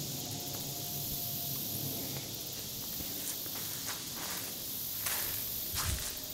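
Footsteps on a sandy, muddy riverbank, a few at first and more frequent toward the end, over a steady high hiss.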